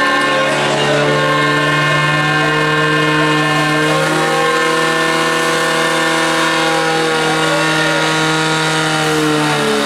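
Portable fire pump's engine running flat out at a steady high pitch, driving water through the hoses to the two jets; it drops away just before the end.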